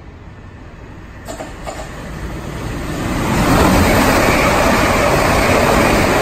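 Passenger train passing the platform at speed without stopping: a rush of wheel and track noise that builds over the first three seconds or so, then stays loud as the carriages go by.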